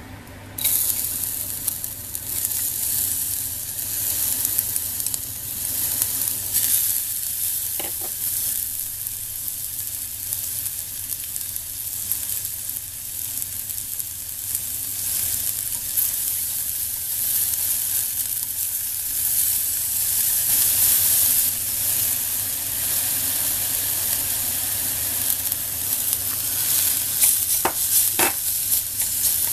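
Minced garlic and ginger sizzling in hot oil in a clay pot. The sizzle starts suddenly about half a second in as they drop into the oil and goes on steadily while they are stirred with chopsticks, with a few light clicks.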